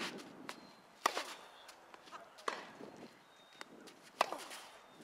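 Tennis ball struck by a racket in a rally: three sharp pops off the strings about a second and a half apart, with fainter ticks between.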